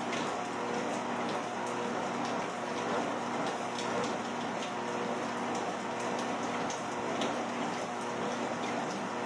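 Treadmill running under a walker: a steady motor hum with belt noise and rain falling. The owner, smelling smoke, worries the treadmill may be overheating.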